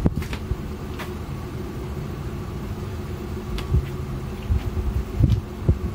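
A steady low hum, like a motor running, with a few short knocks and thumps scattered through it.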